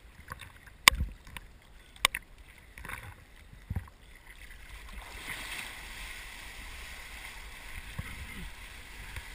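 Water splashing around a kiteboarder's action camera, with a few sharp knocks in the first four seconds, then a steady rush of water and wind from about five seconds in.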